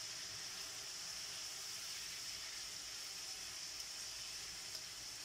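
Pork slices sizzling in a soy-sauce-and-calamansi marinade in a steel wok, a steady hiss, with a few faint ticks from metal tongs turning the meat near the end.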